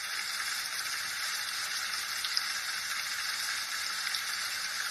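Steady hissing sound effect with a few faint ticks, added to a video clip as a scene sound effect.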